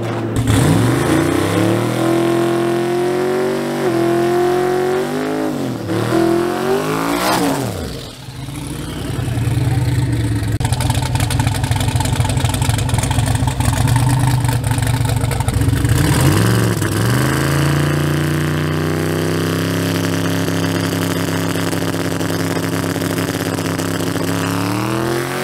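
Twin-turbo Chevrolet Silverado pickup's engine revving in several quick blips, then held at a steady higher speed for several seconds. It drops back to a lower, steady run that slowly climbs, then revs up again near the end.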